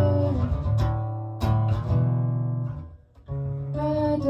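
Guitar chords played in an instrumental break between sung lines of a song, each chord struck and left to ring. The playing fades almost to silence about three seconds in, then picks up again.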